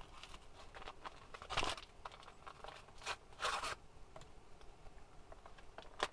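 Paper powder packet being handled and torn open: crinkling with short ripping noises, the loudest about one and a half and three and a half seconds in.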